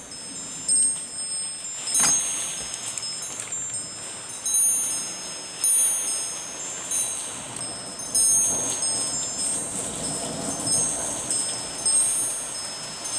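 Wind chimes ringing in the storm gusts, many short high notes at several pitches, over the steady hiss of rain. A few sharp taps break in, and a duller gust swells past near the middle.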